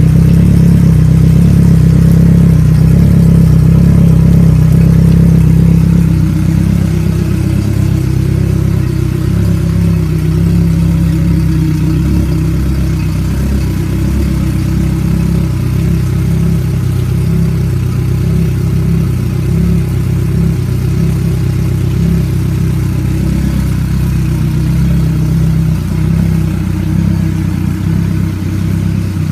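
Selva 115 XSR Tarpon four-stroke outboard running steadily with its cowling off, a loud, even engine note. It gets a little quieter about six seconds in.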